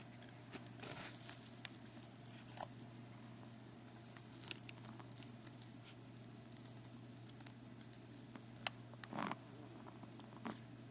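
A quiet pause between snores: a steady low hum with scattered faint clicks and rustles, and one short breath from the sleeper about nine seconds in.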